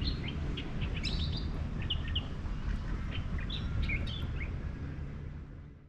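Small birds chirping in many short, quick notes over a steady low rumble of outdoor background noise; it all fades out near the end.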